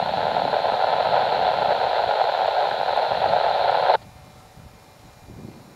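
Loud, steady hiss like an open two-way radio channel, which cuts off abruptly about four seconds in and leaves only faint wind noise on the microphone.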